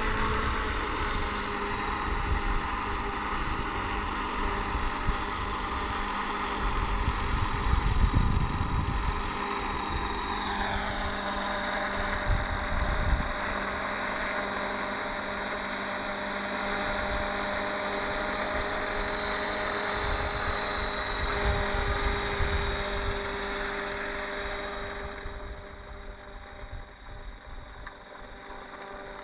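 Model helicopter engine of a 60-class Airwolf running steadily on the ground, with a steady whine over the engine note. The pitch falls about ten seconds in, and the sound drops in level near the end as it winds down. Wind gusts rumble on the microphone.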